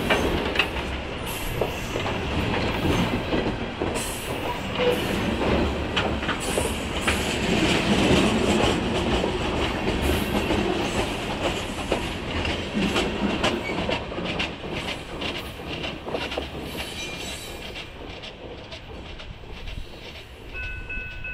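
Freight train of open-top hopper cars rolling past close by, wheels clattering over the rail joints with many sharp clicks. The sound fades steadily in the last few seconds as the end of the train pulls away.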